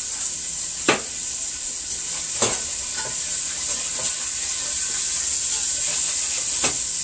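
Salted cod frying in hot oil in a stainless steel pot: a steady sizzle, with a few sharp knocks of a spatula against the pot as the fish is stirred.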